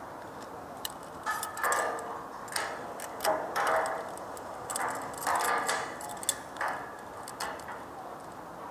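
Irregular clicks and short rattling bursts, clustered in the middle and fading towards the end.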